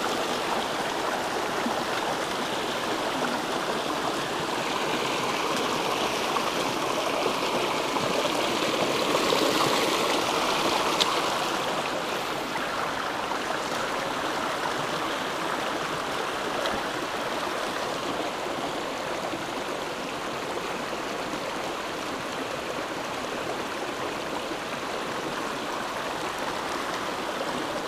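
A small rocky mountain stream running over stones and through shallow riffles: a steady rush of water that swells slightly around ten seconds in.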